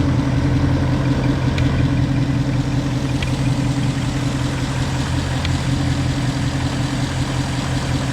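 2019 Ford Mustang GT's 5.0-litre V8 idling steadily, with a faint high-pitched squeak like a squeaky belt, which the owner suspects comes from the timing chain tensioners.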